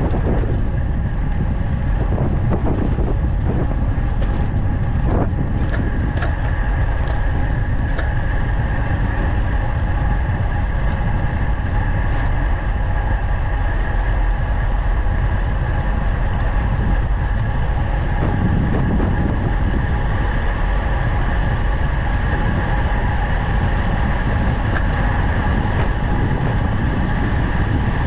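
Wind rushing over the camera's microphone as a road bike descends at speed, a steady low rumble with a steady high whine over it. A few light clicks between about four and eight seconds in.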